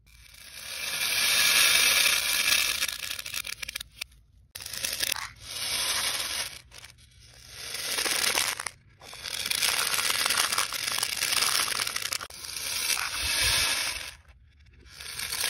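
Plastic pony beads pouring and clattering against one another and a plastic cup, played backwards: a series of rattling rushes, each swelling up and then cutting off abruptly.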